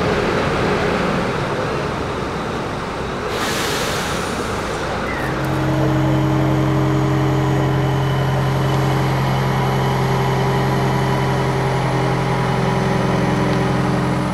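Mobile crane truck's diesel engine running. A short hiss of air comes about three and a half seconds in, then the engine settles into a steady raised drone while the crane works its boom and hook.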